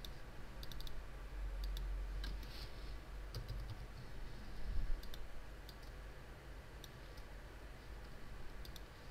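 Computer mouse clicks and a few keystrokes on a computer keyboard, coming in small scattered groups over a low steady hum.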